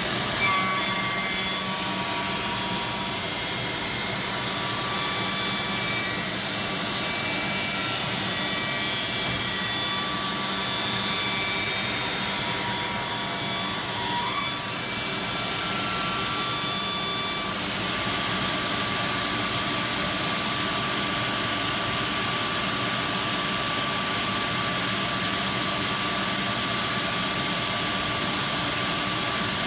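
Automatic wood copy shaper running, its high-speed cutter spindles milling a wooden workpiece with a steady mechanical whine. A cluster of high whining tones sounds over the noise and drops away about 17 seconds in, leaving one steady tone. There is a brief louder burst about half a second in.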